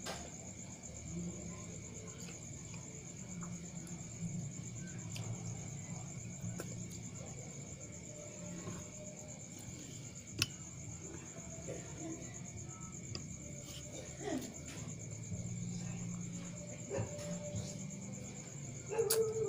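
Crickets trilling steadily in the background. Over them come scattered soft clicks and smacks of hand-eating at a plate, with one sharper click about ten seconds in.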